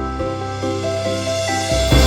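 Background music: sustained melodic notes over a bass line, with a rising swell and a low hit near the end.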